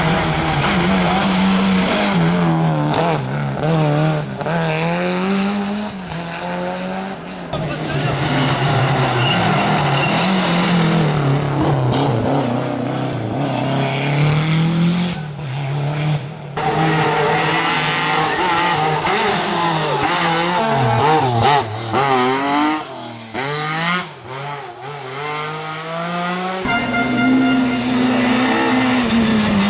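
Rally car engines revving hard, the pitch climbing and dropping repeatedly through gear changes as cars drive a stage. Several passes follow one another with abrupt changes of sound.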